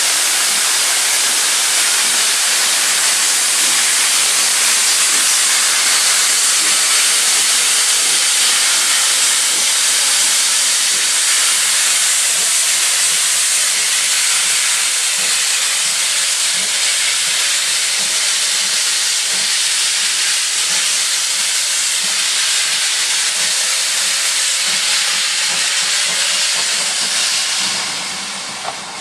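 GWR Manor-class 4-6-0 steam locomotive 'Erlestoke Manor' pulling away with its cylinder drain cocks open: a loud, steady hiss of escaping steam, easing off near the end.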